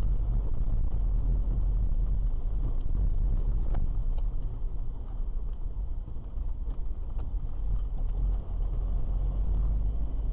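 Car driving, heard from inside the cabin: a steady low rumble of engine and tyres on the road, with a few brief knocks, the loudest about four seconds in.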